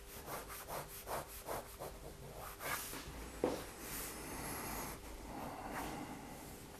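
Faint pen-on-paper sketching: a run of quick short strokes scratching over the sheet, a single tap about three and a half seconds in, then a longer rubbing stroke across the paper.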